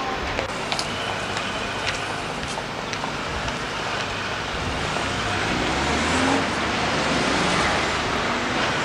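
Town-centre road traffic, with cars passing close by and the rumble growing louder in the second half. A few light clicks in the first three seconds.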